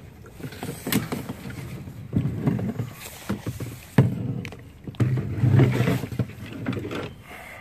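Inflatable kayak being paddled: irregular splashing of the paddle in the water, with knocks of the paddle and gear against the boat, the sharpest about four seconds in.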